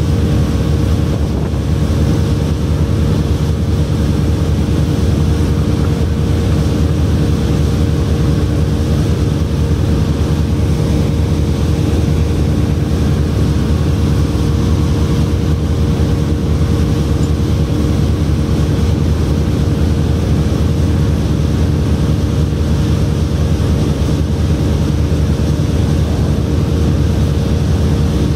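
Steady, unchanging low machinery drone with a constant hum.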